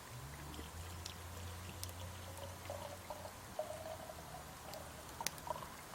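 Liquid being poured in a steady stream, with sharp crackles from a wood fire.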